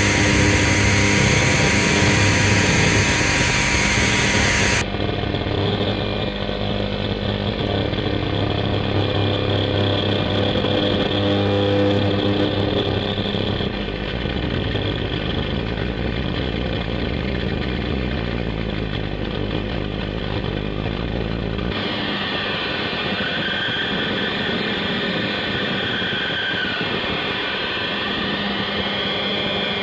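Droning experimental soundtrack music of layered sustained tones and noise, changing abruptly about five seconds in and again about twenty-two seconds in.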